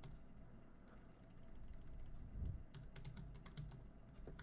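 Computer keyboard keystrokes, faint and irregular, as a password is typed at a terminal prompt, with a cluster of quick taps in the middle and one more keystroke near the end.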